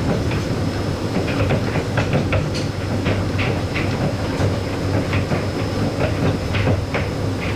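Ueno Zoo suspended monorail car running along its overhead track, heard from inside the cab: a steady low hum with scattered clicks and rattles and a faint high whine.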